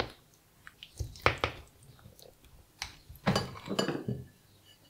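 A spoon scooping soft mash, melted cheese and chicken in white sauce out of a ceramic bowl: wet squelching and scraping with a few clicks of the spoon against the bowl, busiest from a little past three seconds to about four.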